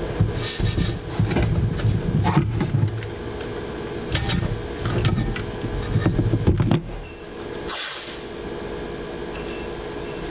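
Green painter's tape being pulled off the roll in several long stretches with a rasping rumble, with two short hissy tears, as strips are laid on the 3D printer's metal bed. A faint steady hum sits underneath.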